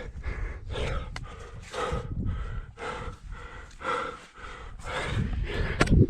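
A climber breathing hard from exertion, heavy panting breaths roughly once a second, with a couple of sharp clicks.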